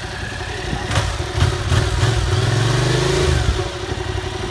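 Yamaha MT-07 parallel-twin engine heard at the exhaust muffler, running near idle and then revved once around the middle, its pitch rising and falling back. A few sharp cracks come just before the rev.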